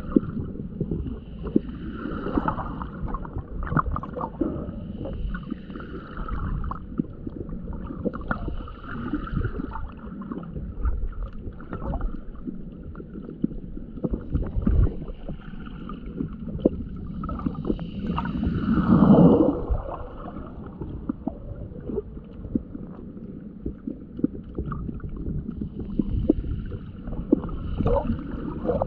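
Water sloshing and gurgling around a camera held just under the surface in shallow water, with many small clicks and knocks. It swells and eases every three or four seconds, with one louder surge about two-thirds of the way in.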